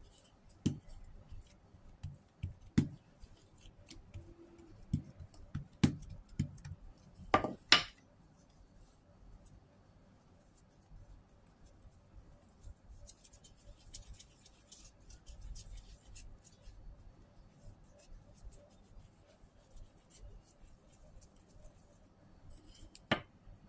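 Hands dividing and shaping bread dough on a silicone baking mat: scattered light taps and knocks for the first several seconds, the loudest about seven seconds in, then quiet handling with one more tap near the end.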